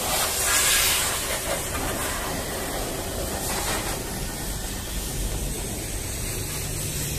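Water spraying from a hose at a car wash: a steady hiss, loudest about a second in.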